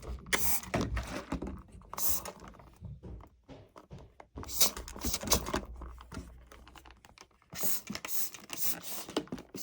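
Irregular clicks, light knocks and scrapes of hand-scrubbing the rubber door seal of a front-loading washing machine, with short pauses between strokes.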